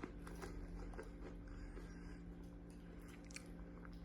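Faint crunching and chewing of a crisp banana-and-strawberry yogurt baby snack, a few small crunches scattered through.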